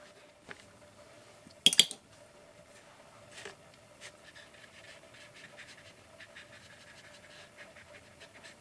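Faint scratching on paper as a water-soluble crayon and then a small paintbrush work over the page, with a brief loud clatter about two seconds in.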